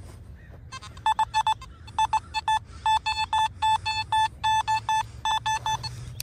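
Nokta Makro Simplex+ metal detector giving short beeps at one steady pitch, repeated in quick pairs and triples as the coil sweeps back and forth over a metal target.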